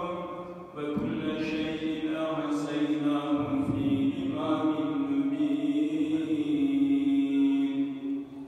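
A single voice in religious chanting, holding long melodic notes that begin about a second in.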